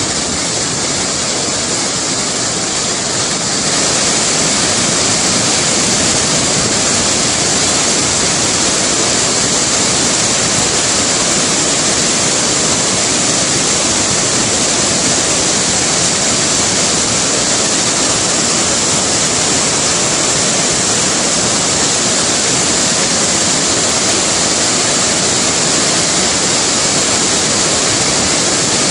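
Rapids and a large waterfall in flood: a steady, loud rush of water that grows louder and brighter about four seconds in.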